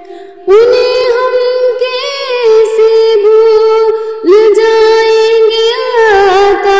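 A high voice singing a naat melody in long held notes with ornamental bends, without clear words. The phrase begins about half a second in after a short breath, and a new phrase starts a little past the middle.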